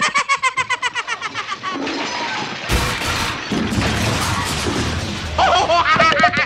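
Cartoon sound effect of a loud crash and boom about two and a half seconds in, trailing off in a low rumble for a couple of seconds. Upbeat background music with a quick steady pulse plays before and after it.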